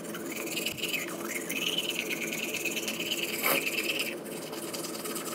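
Bamboo toothbrush scrubbing teeth: a steady, rapid rasping of bristles brushed back and forth.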